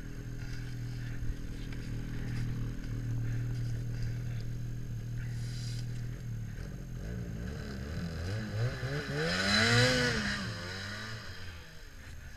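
Snowmobile engine running at a steady idle, then revved up and down several times in the second half, with a hiss of churned snow at the loudest rev, as a sled stuck in deep powder is worked free.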